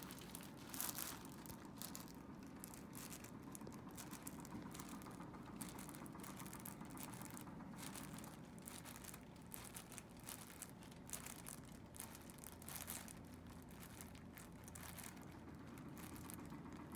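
Faint, irregular rustling and crinkling as the patient and the chiropractor's hands move against clothing and the treatment table.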